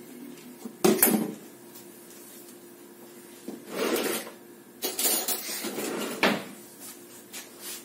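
Kitchen handling noises: a sharp, loud knock about a second in, then two longer noisy bouts of clattering that start suddenly, near the middle and toward the end.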